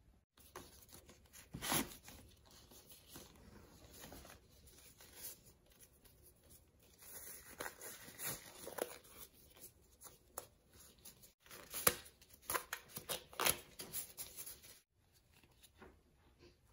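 Black disposable gloves being pulled onto the hands: rubbery rustling and stretching with several sharp snaps of the glove material.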